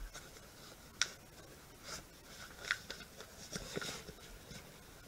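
A sheet of printer paper being folded and creased by hand: faint, irregular rustling and crinkling, with a sharp crisp tick about a second in.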